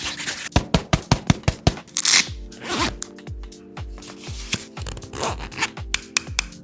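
Handling sounds from packing a tote bag: a quick run of sharp clicks in the first couple of seconds, a rasping zipper-like burst about two seconds in, then fabric rubbing and scraping. Background music with a steady beat plays underneath.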